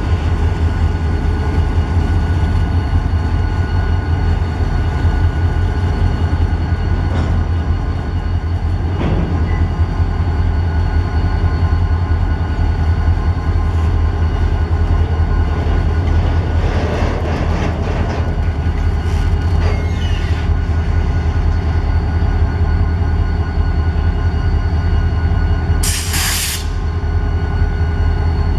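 Diesel-electric locomotives ELS 500 and ILSX 1338 running close by with a steady, deep engine drone. A short, sharp hiss of air sounds near the end.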